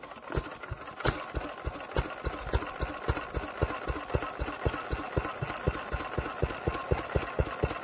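Vintage single-cylinder stationary engine running, firing in a regular chuffing beat that quickens over the first few seconds to about five beats a second as it comes up to speed, then holds steady.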